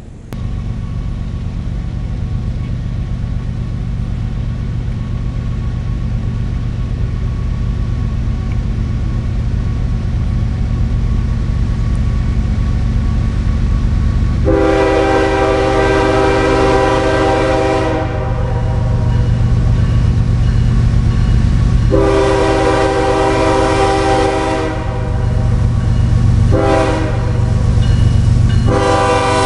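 Diesel freight locomotive's multi-chime air horn sounding the grade-crossing signal: two long blasts, a short one, then a long one, over a steady low rumble that grows slowly louder.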